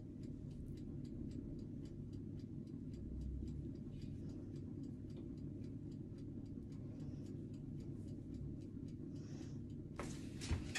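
Steady, evenly spaced ticking, a few ticks a second, over a low steady hum; near the end a hiss comes in with a soft knock.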